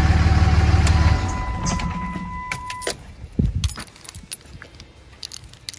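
The 5.9 Cummins inline-six turbo diesel in a 2006 Dodge Ram 3500 idles, then is shut off about a second in, its rumble dying away. A steady electronic tone sounds for about two seconds, followed by a bunch of keys jangling and clicking in the hand.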